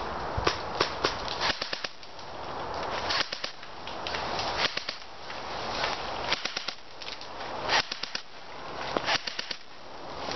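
Airsoft guns firing: sharp snapping shots, some single and some in quick strings of three or four, every second or two, over a rustling background that rises and falls.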